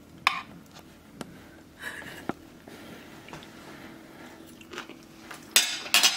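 A person biting and chewing a forkful of potato latke with sour cream, with a few sharp clicks and the loudest ones near the end.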